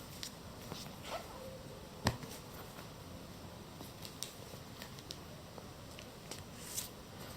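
Faint handling noise: scattered light clicks and taps as printed photo items are handled, with one sharper tap about two seconds in.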